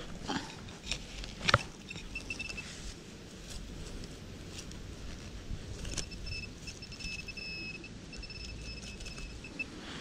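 Hand digging in leafy forest soil: a red-handled digging tool scraping and knocking in the dirt, with a few sharp knocks in the first two seconds, the loudest about a second and a half in. Over the second half a thin high steady tone sounds in broken stretches.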